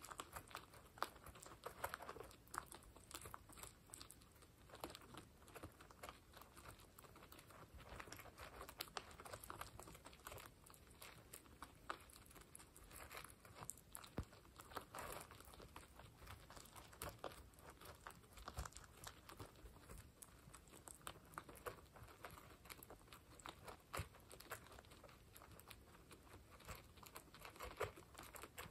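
Guinea pigs eating dry pellets from a bowl: a faint, irregular run of small crunches and clicks as they chew.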